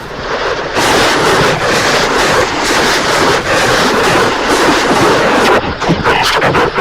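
A logo jingle heavily distorted by stacked audio effects, turned into a loud, dense wash of noise that flickers and breaks up near the end.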